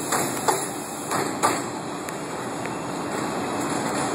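R142 subway train pulling away along elevated track, its wheels knocking over rail joints about four times in the first second and a half, then a steady running noise.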